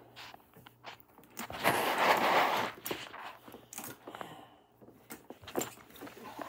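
Handling noise from a canvas tool bag full of hand tools being shifted about on a wooden floor. A rustling scrape about two seconds in is the loudest part, with light knocks and clicks around it.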